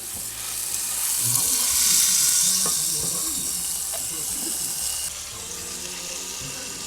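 Thick tomahawk ribeye steak searing in a hot pan, a steady sizzle that grows louder about a second in and drops off suddenly about five seconds in, with a few light knocks.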